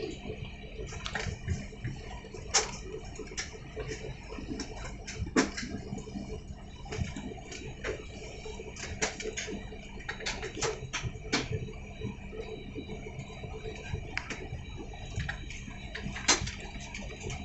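Airliner cabin noise while taxiing: a steady low hum with many irregular sharp clicks and ticks over it.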